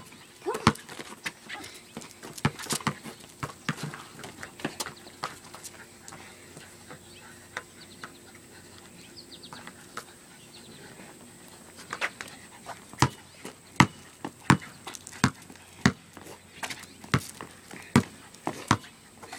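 Basketball bouncing on an asphalt driveway: a string of sharp bounces, sparse at first, then coming steadily about every three-quarters of a second in the last third.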